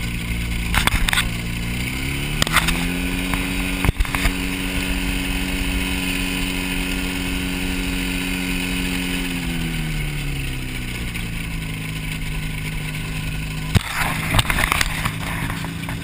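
Ultralight airplane's engine and propeller running on the ground: the engine revs up about two seconds in, holds the higher speed for several seconds, then throttles back to idle at about ten seconds. There are a few sharp knocks along the way.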